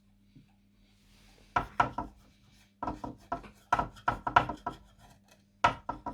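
Quick, irregular knocking and scraping on a wooden clock case, several strikes a second, starting about one and a half seconds in, as wax is worked onto the wood by hand.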